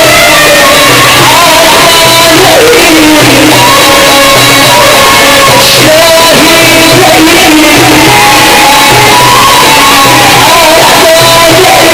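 A male Sufi munshid singing a religious hymn (inshad) into a microphone over loudspeakers, in long, ornamented notes that slide between pitches. Instrumental accompaniment runs beneath, with a steady low pulse.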